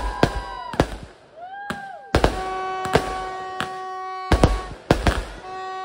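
New Year fireworks going off: repeated sharp bangs and crackles, with whistles whose pitch rises and falls over the first two seconds. From about two seconds in, a steady held horn-like tone sounds over the bangs, breaking off briefly near the end.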